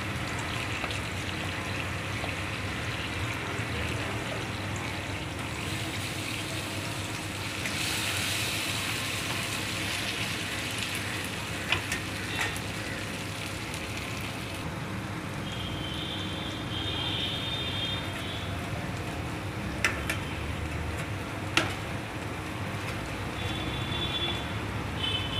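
Food frying in oil in a metal pan while it is stirred with a spatula: a steady sizzle, louder about eight seconds in, with a few sharp knocks of the spatula against the pan.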